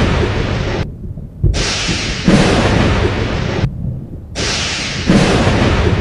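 Thunder: a continuous deep rumble with loud crackling peals that cut off and start again abruptly, twice in a few seconds.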